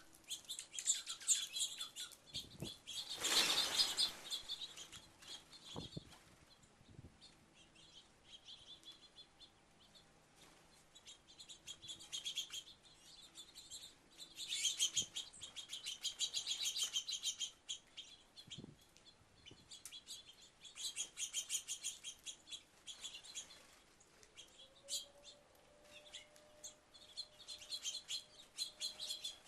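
Flock of small birds at a feeder chirping and twittering in quick bursts that come and go. A short loud rush of wingbeats comes about three seconds in.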